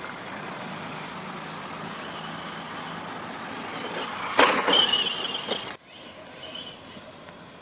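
Radio-controlled truck running on grass: a steady hiss, then a loud burst of clatter and a high whine as it comes close a little past the middle, which cuts off abruptly.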